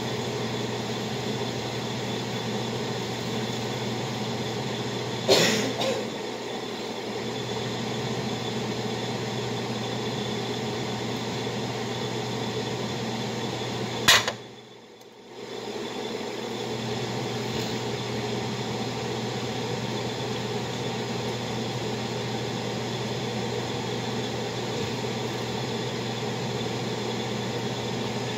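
Steady mechanical hum of a running kitchen appliance or fan, broken by two sharp knocks close by, about five seconds in and about fourteen seconds in. After the second knock the hum drops away for a moment, then returns.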